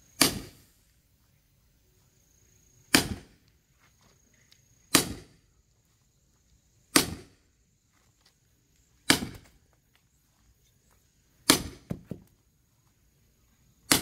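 A sledgehammer strikes the back of an axe head wedged in a log: sharp hits about every two seconds, each with a short ring, six of them and a seventh right at the end. The log is not splitting, which the worker puts down to a knot in the wood.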